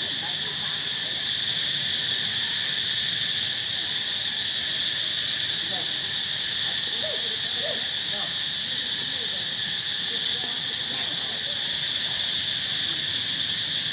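Steady, high-pitched drone of a dense insect chorus in tropical forest, unbroken and even in level throughout.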